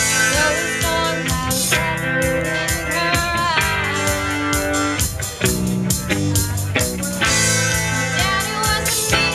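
Live rock band playing: strummed acoustic guitars and electric guitar over bass guitar and a drum kit keeping a steady beat.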